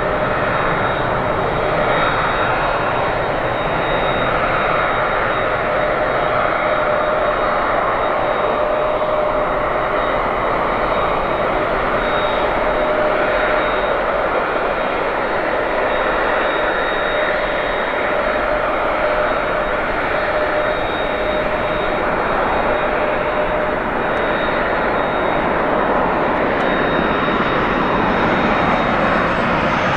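Airbus A350's Rolls-Royce Trent XWB turbofan engines running with a steady roar and a constant high whine; a lower whining tone fades out about three-quarters of the way through.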